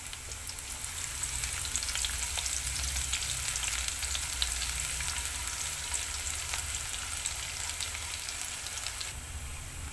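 Sliced shallots frying in hot oil in a wok: a steady sizzle thick with small crackles and pops.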